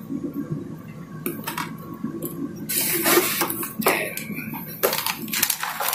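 A few small clicks as the fiber optic patch cord is handled, then, from about three seconds in, a plastic bag crinkling and rustling as a power adapter is pulled from its cardboard box.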